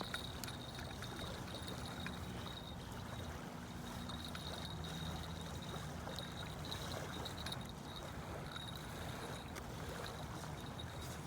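Steady wash of moving water, with a faint low hum underneath and a thin, broken high tone.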